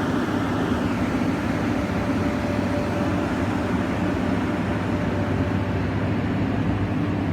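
Excavator diesel engine running steadily.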